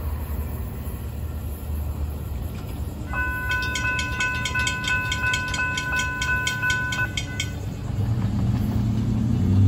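Railroad grade-crossing bell dinging rapidly, about four strokes a second, while the crossing gates rise; it starts about three seconds in and stops about seven and a half seconds in, once the gates are up. Near the end a car drives across the crossing with a growing low rumble.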